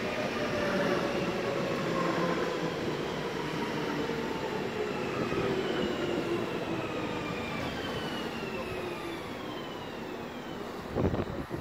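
Alstom Coradia Continental (DB class 1440) electric multiple unit running into the platform and braking, its traction motors giving a whine that slowly falls in pitch over wheel-on-rail rumble.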